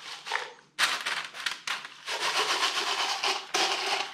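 Crushed glass pieces poured out of a plastic cup onto wax paper, giving a dense crackly tinkling rattle. It starts about a second in, dips briefly near two seconds and carries on.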